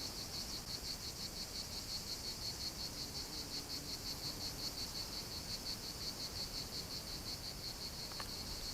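Cricket chirping steadily: a high, even pulse about five or six times a second, over a faint low background hum.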